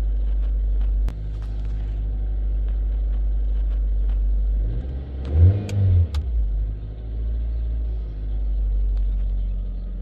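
Nissan Juke engine idling steadily, with one brief rev about five seconds in that falls back to idle. It is running without the rough idle and stalling it had before the camshaft and crankshaft position sensors were replaced; the owner says it now has a high idle.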